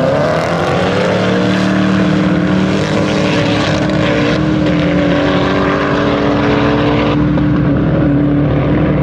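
Koenigsegg Regera and Koenigsegg One:1 twin-turbo V8s at full throttle, accelerating hard from a drag-race launch: a loud, steady engine drone rising slowly in pitch. The Regera's Direct Drive has no gearbox and does not shift, while the One:1 is heard changing gear, with changes in tone about four and seven seconds in.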